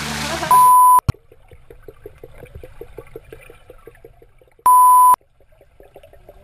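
Two loud electronic beeps, each a steady tone about half a second long, about four seconds apart, with a faint rapid ticking of about seven strokes a second between them. Music cuts off just before the first beep.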